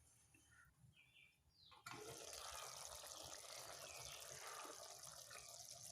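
Near silence, then about two seconds in a steady faint hiss starts suddenly: chicken and raw plantain simmering in the pan in the water the chicken has released.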